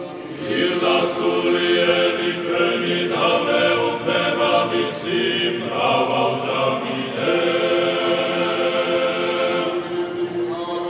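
Male church choir singing Georgian Orthodox liturgical chant in several voice parts, with long held chords over a steady sustained lower note. The singing swells up about half a second in.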